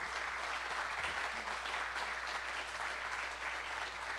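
Audience applauding: many hands clapping at an even level.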